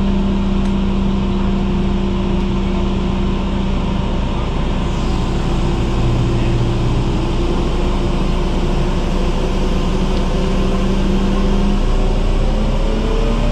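Mobile crane's diesel engine running steadily while the crane holds a boat in its slings, with the engine note rising near the end.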